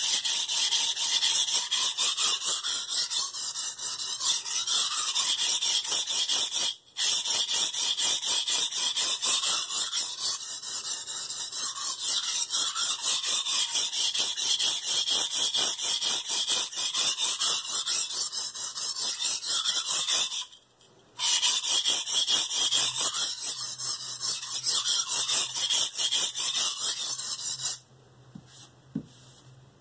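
KitchenAid santoku blade stroked rapidly back and forth on a wet Shapton Pro 320-grit whetstone, a steady hissing scrape of steel on stone as the coarse stone grinds the edge to raise a burr. The strokes break off briefly about 7 seconds in and again about 21 seconds in, and stop a couple of seconds before the end.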